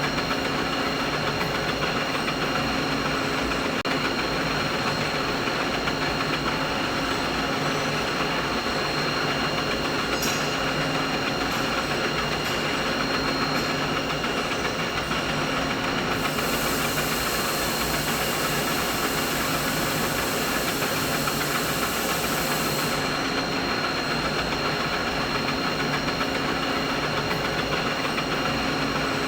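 Steady drone of running machinery: a dense, continuous hum with several held tones in it. A brighter high hiss joins a little past halfway and drops out several seconds later.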